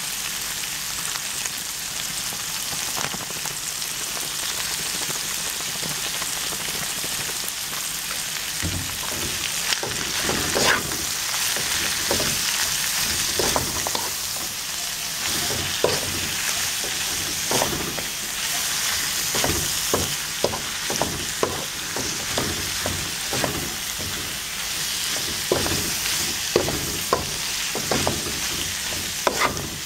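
Mustard greens and other chopped vegetables sizzling in a hot oiled pan. From about a third of the way in, a wooden spatula stirs and tosses them, striking and scraping the pan about once or twice a second.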